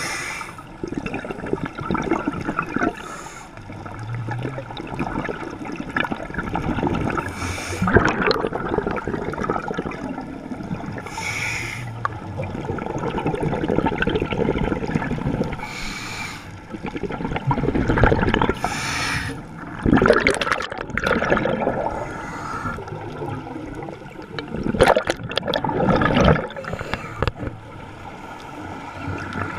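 Scuba divers breathing through regulators underwater: gurgling, rushing exhaust bubbles with a short hiss about every four seconds.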